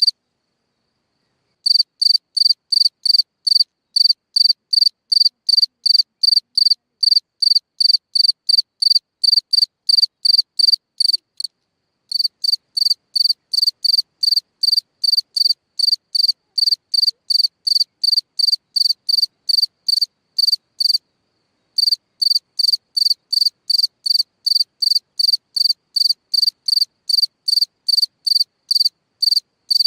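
A cricket chirping in a steady, regular rhythm of short, high-pitched chirps, about two a second, breaking off briefly a few times.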